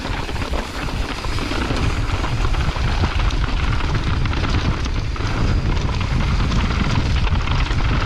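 Wind buffeting the GoPro microphone at riding speed on a mountain bike descent, a steady low rumble that builds over the first second, with the tyres rolling over dirt and loose rock and the bike rattling throughout.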